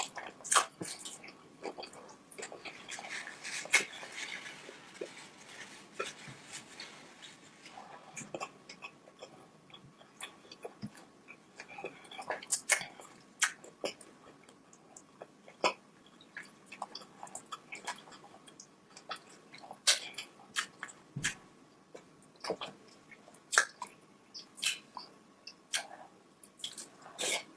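Close-miked chewing and wet mouth sounds of someone eating sauce-covered seafood and corn, with irregular sharp smacks and clicks coming every second or so.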